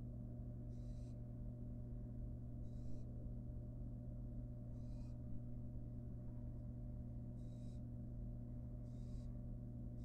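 Barn owl fledgling giving short, rasping hiss calls, five in all, each under half a second and spaced a second or two apart. A steady low hum runs underneath.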